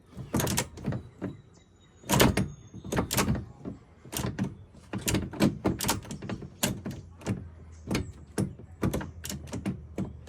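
Irregular series of sharp clunks and clacks from the newly installed gear shift lever of a 2006 Yamaha Rhino 660 side-by-side being worked through its gear positions, with the shifter and linkage knocking into place.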